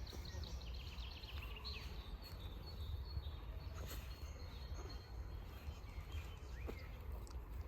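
Outdoor ambience of small birds chirping over a steady low rumble, with a quick run of high chirps in the first two seconds and a few scattered calls later.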